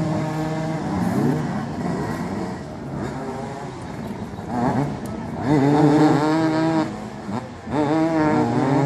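Several motoball motorcycles revving and running as their riders jostle for the ball, engine pitch rising and falling; the loudest revving comes about halfway through and again near the end.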